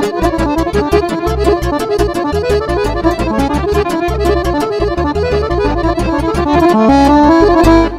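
Chromatic button accordion playing a fast Romanian lăutărească tune, quick runs of notes over a pulsing bass. Near the end it swells into louder held notes, then breaks off sharply.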